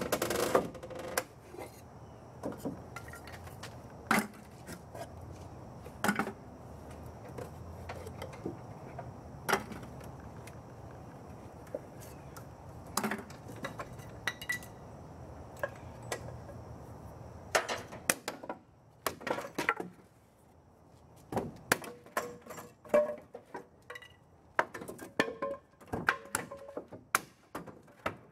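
Wooden 2x4 clamping braces and their all-thread bolts being taken off a boat transom: irregular knocks of wood and metallic clinks, scattered at first and busier in the second half.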